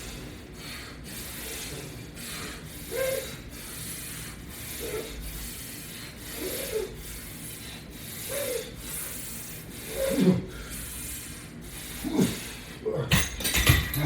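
Resistance bands and straps rubbing and creaking on the latch bar attachment, a stroke about every two seconds with each push-and-pull repetition. A few sharper clicks near the end.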